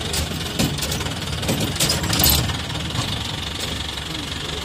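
Safari jeep's engine running as it drives over a rough dirt track, with scattered short rattles and knocks over a steady low rumble.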